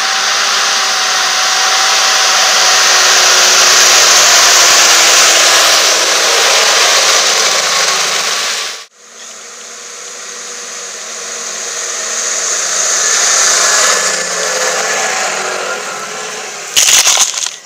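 Valtra T153 tractor's six-cylinder diesel working under load as it pulls a reversible plough through wet soil, heard as a loud rushing noise with a faint engine drone. The sound cuts off about nine seconds in and then builds again as the plough comes close. A sudden loud knock near the end comes as soil is thrown onto the camera.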